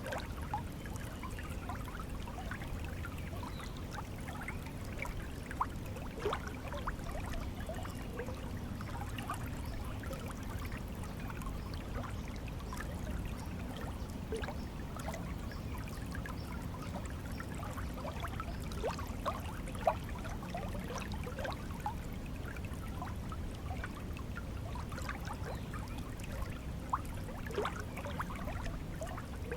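A shallow stream of water flowing and trickling steadily, with many small bubbling plinks and a few louder splashes.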